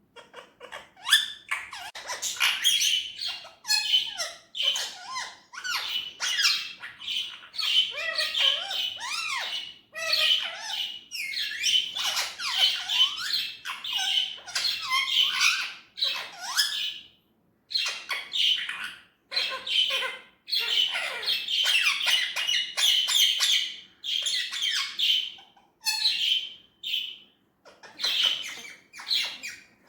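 Indian ringneck parrot chattering and squawking in a near-continuous run of short, high-pitched calls with quick pitch glides, pausing briefly a few times in the second half.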